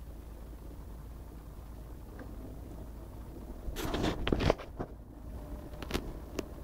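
Faulty Asus G73Jh laptop making its random strange noise: over a steady low hum, a short burst of crackling clicks about halfway through, then a few single sharp clicks. The uploader links the noise to the laptop crashing to a blue screen.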